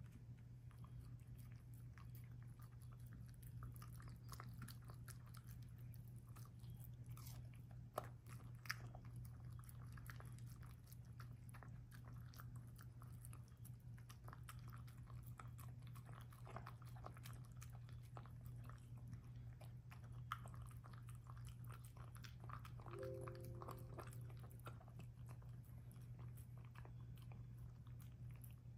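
A dog eating soft minced food from a stainless steel bowl: faint chewing with many small clicks, and a couple of sharper clicks about eight seconds in.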